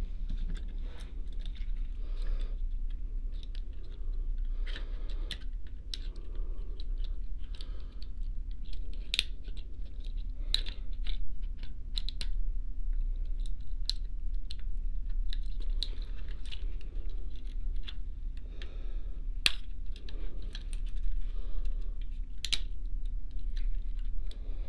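Light clicks and taps of plastic as an HO-scale model steam locomotive's body shell is handled and fitted back onto its chassis, with a few sharper clicks, over a steady low hum.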